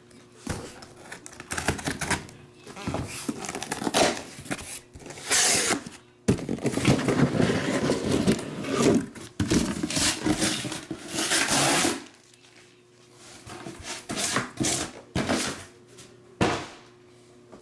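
A cardboard shipping case is handled and pulled up off a stack of shrink-wrapped card boxes: cardboard scraping, rustling and knocking. There is a long stretch of loud sliding and scraping in the middle, then a few lighter knocks.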